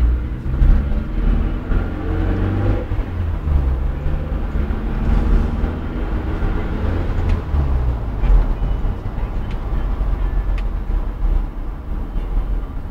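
Motor vehicle driving on a road, its engine running with a steady low rumble whose pitch rises and falls a few times as it speeds up and slows.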